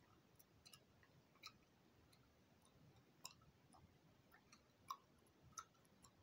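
Faint, irregular mouth clicks and smacks of gum being chewed, about a dozen short ticks in near silence, the loudest a little before five seconds in.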